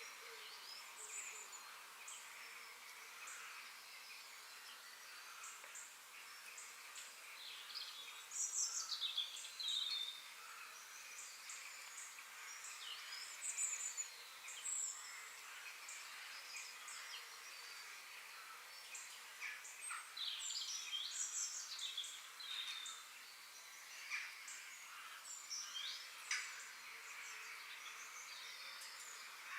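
Forest ambience: several birds chirping and singing in short high calls over a steady background hiss. The calls are busiest and loudest about eight seconds in and again around twenty seconds in.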